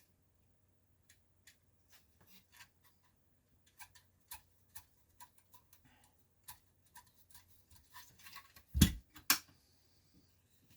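Scattered light clicks and taps of small parts and tools being handled on a workbench, growing busier partway through, with two sharp knocks close together near the end.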